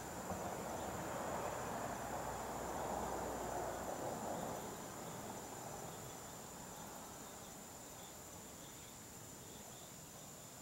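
Steady high-pitched chorus of night insects. Over it, a broad swell of noise is loudest in the first few seconds and fades away by about six seconds in.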